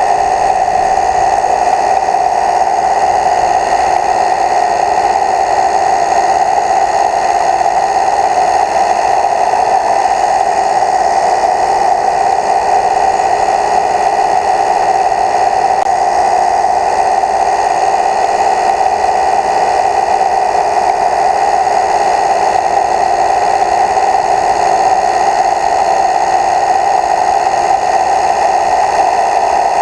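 Small multirotor drone's electric motors and propellers hovering close to the microphone: a loud, steady whirring hum that holds one pitch throughout.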